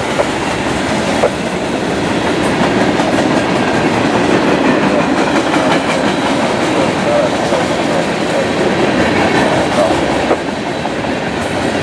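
Long freight train rolling past at speed: a steady rumble and clatter of wheels on the rails.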